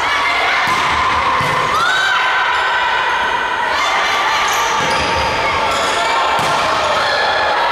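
Volleyball being hit several times during a rally, sharp slaps ringing in a large gym hall, with a short squeak about two seconds in, over steady voices and crowd noise.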